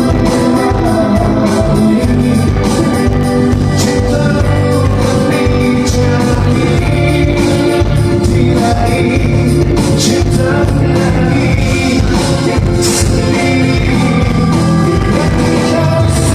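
Live band playing a song with a singer, over a steady drum beat.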